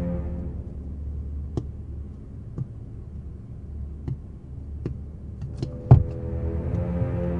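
Golf balls dropping onto a grass lawn: a scattering of short, sharp thuds, the loudest about six seconds in, over a low steady rumble.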